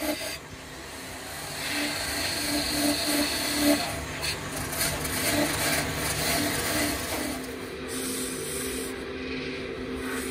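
Wood lathe spinning a wooden bowl blank while a hand-held chisel scrapes its inside face: a scraping hiss over the lathe's steady hum. About seven and a half seconds in, the cutting gives way to a softer rubbing as sandpaper is held to the spinning wood.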